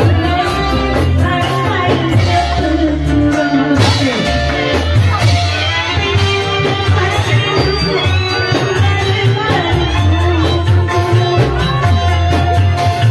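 A woman singing into a microphone over loud, amplified Indramayu reog band music with drums and a strong bass beat.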